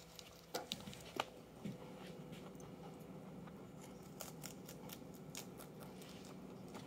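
Flemish giant rabbit biting and chewing kale leaves and stems: a run of faint, crisp snipping crunches, clustering again about four seconds in.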